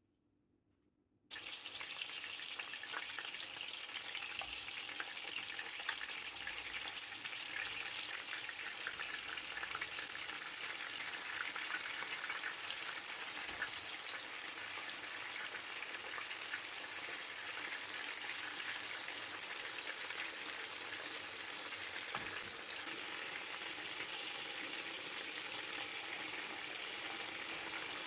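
Food frying in hot oil in a pan: a steady crackling sizzle that starts abruptly about a second in.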